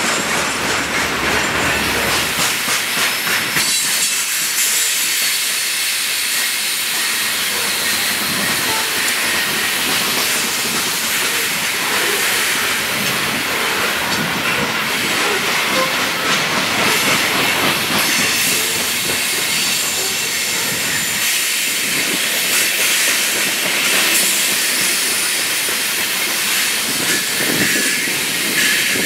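Freight train of open-top hopper cars rolling past close by: a steady high hiss of steel wheels on the rails.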